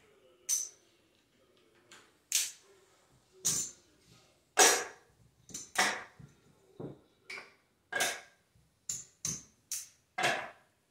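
Casino chips clacking against each other as they are stacked and set down on a craps table's felt layout: about a dozen separate sharp clicks at irregular intervals.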